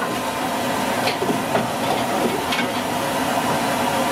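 Potatoes for french fries deep-frying in a large iron kadai of hot oil, a steady sizzle of bubbling oil.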